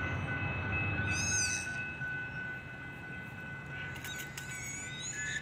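Railroad grade-crossing warning bell ringing steadily while the crossing signals are active, over a low rumble. Birds chirp over it: a quick run of high arching chirps about a second in, and more chirps near the end.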